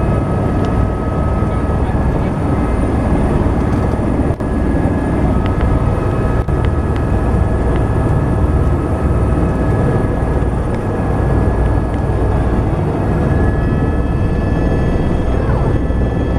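Helicopter turbine engine and main rotor running on the ground, heard from inside the cabin: a loud, steady rumble under several constant high whines.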